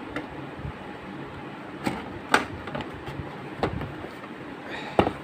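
A Hikvision DVR's top cover being slid shut over the chassis, scraping with a few sharp clicks and knocks as it seats; the loudest knocks come about two seconds in and near the end.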